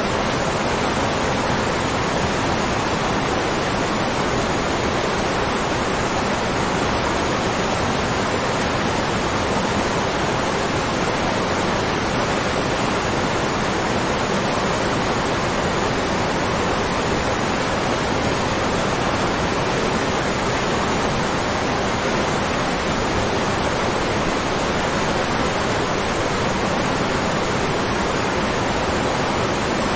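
Waterfall rushing, a steady, even roar of falling water with no change.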